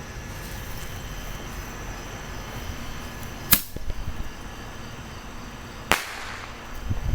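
Bottle rockets going off: two sharp bangs about two and a half seconds apart, the first the louder.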